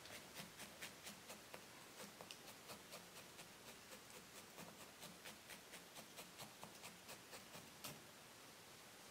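Faint, even ticks of a felting needle tool stabbing repeatedly into wool, about four a second, stopping shortly before the end.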